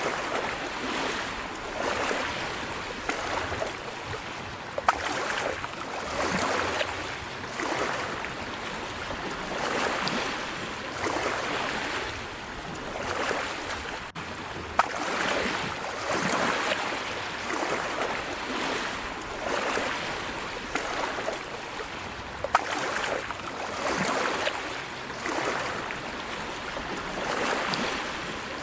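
Small waves lapping and washing in, swelling and easing every second or two, with a few sharp clicks.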